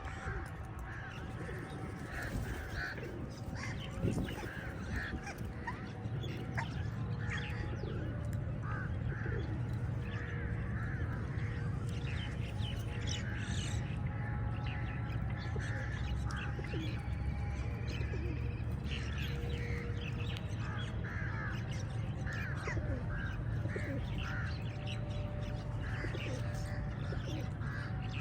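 A flock of crows cawing without pause, many short calls overlapping, over a low steady rumble that gets a little louder about six seconds in.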